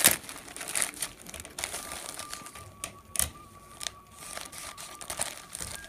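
Handling noise: scattered sharp clicks and taps, the loudest right at the start, with a faint steady high tone through the middle.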